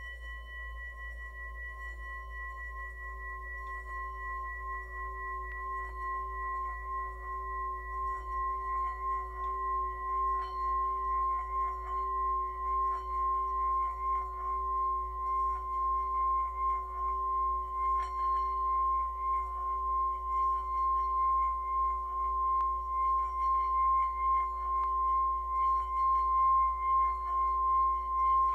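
Metal singing bowl being sung by rubbing a wooden mallet around its rim: a sustained ringing of several pitches at once. It wavers gently in loudness and swells steadily louder as the rubbing goes on.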